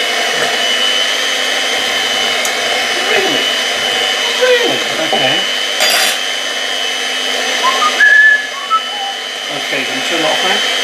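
Electric hand mixer running steadily with a high whine, its beaters whisking cake batter in a glass bowl. A single knock about six seconds in.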